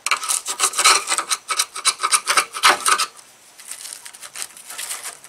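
Quick back-and-forth hand scraping on the T-top channel of a 1988 Chevy Camaro, several strokes a second, clearing old seam filler off the metal. The strokes turn fainter after about three seconds.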